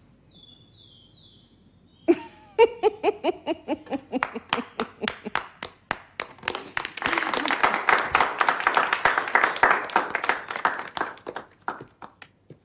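Clapping begins about two seconds in as steady single claps with laughter over them, then swells into applause from many people that dies away near the end.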